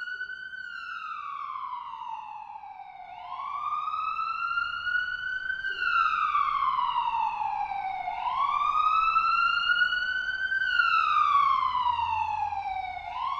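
Police siren wailing in slow rises and falls of pitch, about five seconds each, three times over, growing louder.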